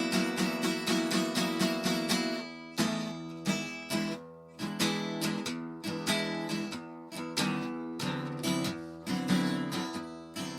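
Background music made of quick, evenly repeated plucked notes, like a picked guitar.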